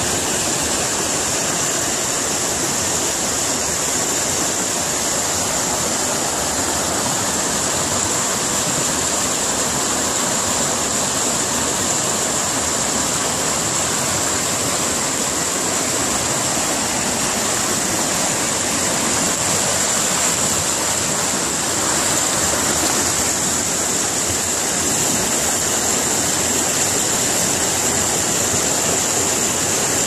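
Shallow mountain river rushing over rocks, a steady rush of white water.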